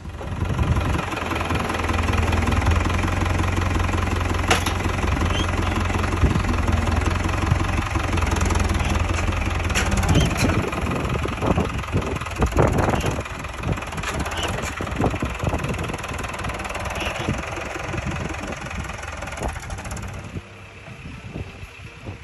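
Farm tractor's diesel engine running steadily at idle, with a few knocks and clanks around the middle. It grows quieter near the end.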